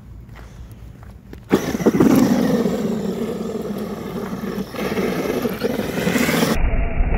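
Electric motor of a Traxxas E-Revo RC monster truck whining as it is throttled, its pitch rising and falling, with tyres spinning and throwing snow. It starts suddenly about a second and a half in, after a quieter stretch with a few clicks. Near the end it gives way to a heavy low rumble.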